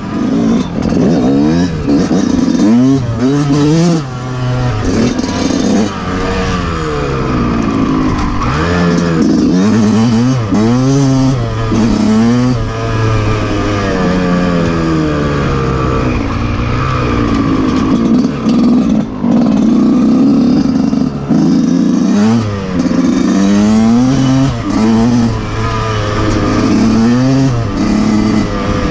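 Yamaha YZ125's two-stroke single-cylinder engine being ridden hard, revving up and dropping back over and over as the rider works the throttle and shifts gears.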